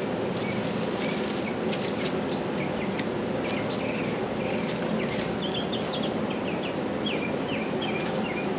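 Small birds chirping in short, quick notes, with a fast run of chirps from about five seconds in, over a steady low background hum.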